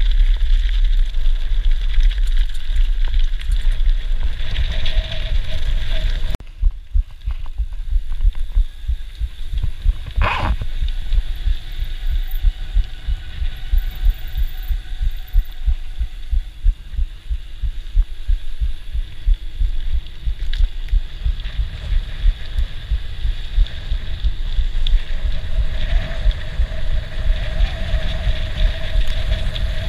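Mountain bike ridden fast over gravel and then tarmac: wind buffeting the microphone, with steady rattling and bumping from the bike over the ground. The sound changes abruptly about six seconds in, and a short, sharper sound stands out about ten seconds in.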